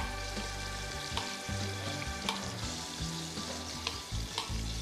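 Melted margarine sizzling in a hot stainless steel pot as condensed milk is poured in, with a few light clicks.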